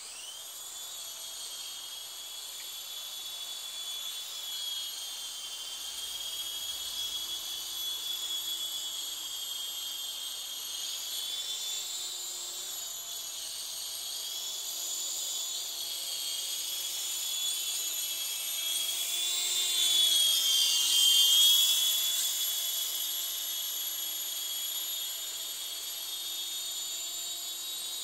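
Electric motor and rotors of a WL Toys V913 four-channel RC helicopter in flight: a steady high-pitched whine over a lower hum. The pitch wavers with the throttle, and it grows loudest about two-thirds of the way through.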